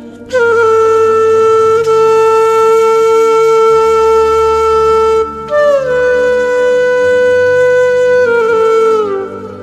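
Slow wind-instrument music. One long note is held for about five seconds, then after a brief break a higher note slides down and steps lower near the end, over a low steady drone.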